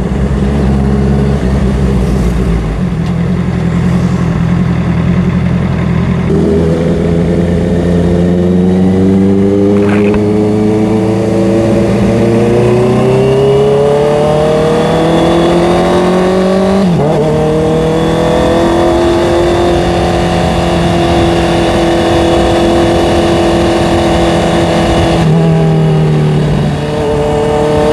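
Honda CBR650R's inline-four engine under way, heard from the rider's position: the revs climb steadily for several seconds, drop sharply at a gear change about seventeen seconds in, then hold steady at cruising speed.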